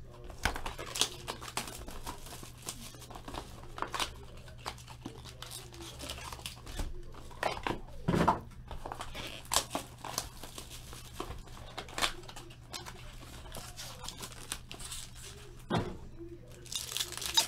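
Trading card boxes and a plastic-wrapped card pack being handled and opened: scattered rustles and knocks of cardboard with crinkling and tearing of plastic wrapper. There is a louder thump about eight seconds in, a denser burst of crinkling near the end, and a steady low hum underneath.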